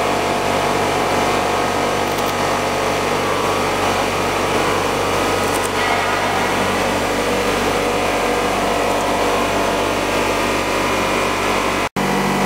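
Blown film extrusion line running: a loud, steady machine hum made of several steady tones. Near the end it cuts out for an instant, then comes back with a different mix of tones.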